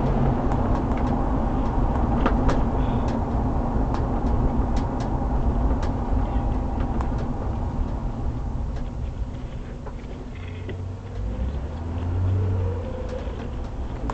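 Motor vehicle running: a steady low engine and road rumble with scattered sharp clicks, easing off in the second half, then a brief swell about twelve seconds in.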